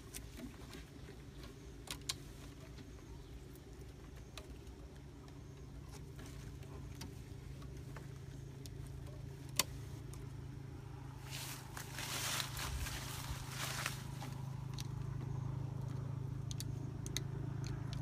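Scattered light clicks and rustling from hands tying string around a plastic PVC pipe, with a longer rustle about twelve seconds in. Under it runs a steady low engine-like hum that slowly grows louder.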